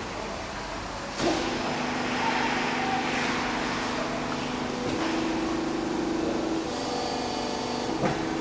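Hydraulic press for moulding rubber air springs running: its pump starts abruptly about a second in and goes on as a steady whining hum that shifts pitch a few times as the press works, with a short clunk near the end.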